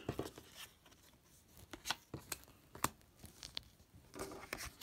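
Trading cards and a binder's plastic pocket pages being handled: faint, scattered clicks and plastic rustles as cards are moved and slid into the sleeves.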